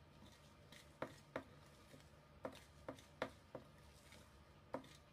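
Wire whisk tapping and clinking against a ceramic bowl as chocolate cake batter is whisked by hand, about seven sharp, irregular taps over a faint low hum.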